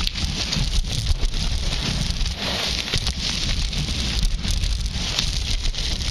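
Skis sliding and carving over groomed, hard-packed snow: a continuous crackling scrape from the ski bases and edges. Wind rumbles on the camera microphone underneath.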